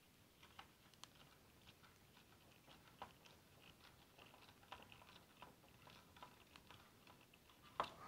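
Mostly near silence, broken by faint, irregular small clicks and taps of hands working a 3D printer's power supply into place and handling its wires and screws.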